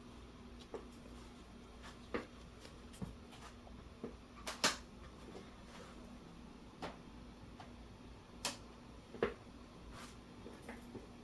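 Colored pencils clicking and tapping as they are picked up and set down on a hard surface, about a dozen short, irregular clicks over a faint steady hum.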